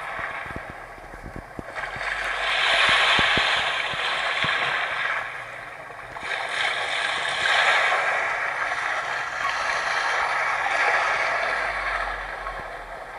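Sea waves breaking and washing on the shore, the surf rising and falling away in two long surges.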